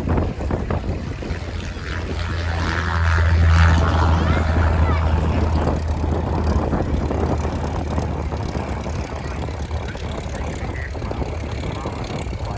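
Aeroplane flying past: a low engine drone that swells to its loudest about three and a half seconds in, then slowly fades.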